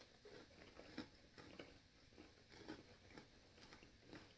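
Faint chewing on a fully chocolate-dipped pretzel rod, heard as a string of small, irregular crackles and clicks.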